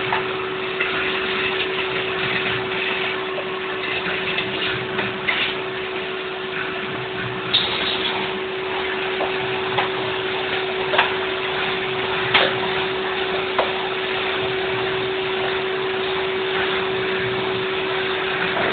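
Vacuum cleaner running steadily with a constant hum, with a few short, sharp knocks along the way.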